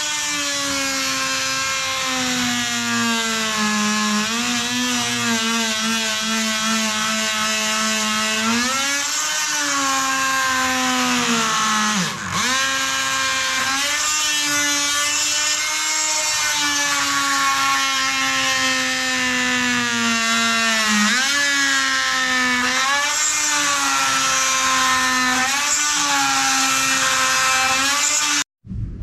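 Corded oscillating multi-tool running with a steady whine as its blade cuts an angled scarf into a 7/8-inch wooden hull plank. The pitch sags and recovers several times as the blade bites under load, dips briefly about twelve seconds in, and the tool cuts off suddenly just before the end.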